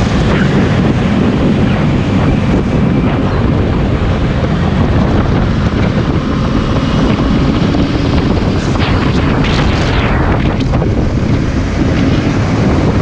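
Steady wind noise over the microphone of a Kawasaki Ninja 250 riding at highway speed, with the engine running underneath. The hiss swells briefly a little past the middle.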